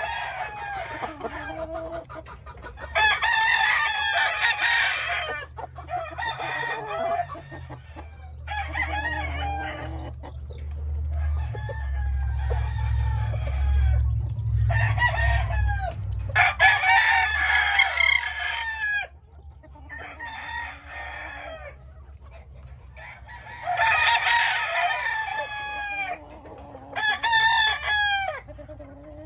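Gamecock roosters crowing again and again, each crow lasting a second or two, some overlapping, with short pauses between. A low rumble swells under them in the middle.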